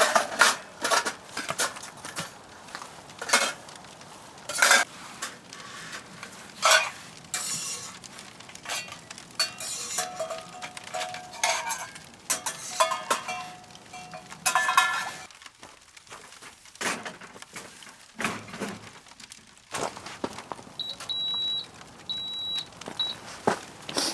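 Dishes and metal cookware clinking and knocking as they are handled, in many separate sharp clinks, some of which ring briefly. A few short high beeps sound near the end.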